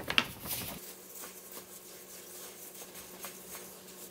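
Plastic bag crinkling as meju powder is poured out of it into a steel bowl, then, about a second in, the sound drops to faint soft rustling and light ticks of gloved hands working meju powder and chili powder together.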